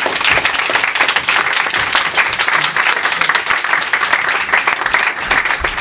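A room full of people applauding, many hands clapping at once; it starts abruptly, right after a speech ends.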